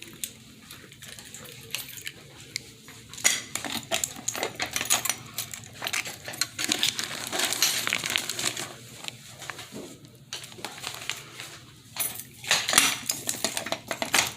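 Small hard objects being handled on a surface: a quick, irregular run of clicks, taps and rustles, busiest about three seconds in and again near the end.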